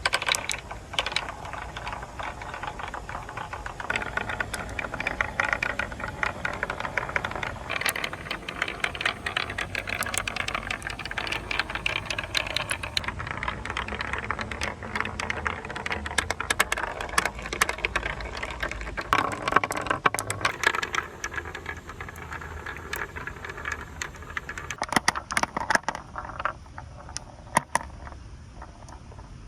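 Many marbles rolling and clattering along a marble run, a dense stream of small clicks and rattles that thins out a little near the end.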